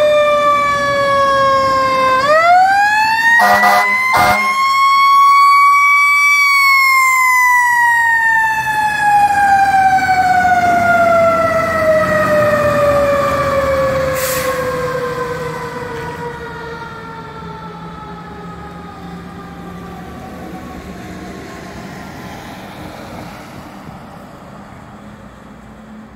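Fire engine siren winding up to a high wail twice, then slowly coasting down in pitch as it fades, in the way of a mechanical siren. There are two short sharp blasts early in the wind-up.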